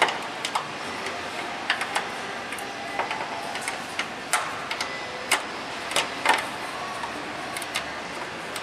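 Irregular sharp clicks and light knocks of hand tools and metal parts, about one or two a second, as a fastener is worked into place deep in the engine bay.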